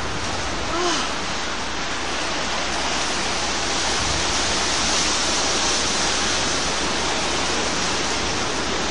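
Steady rushing noise of storm wind and heavy rain, growing a little louder and hissier about three seconds in. A brief voice-like sound comes about a second in.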